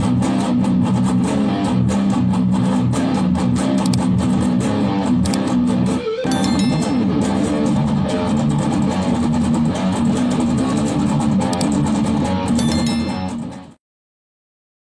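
Opening theme music led by plucked strings over a bass line, fading out near the end.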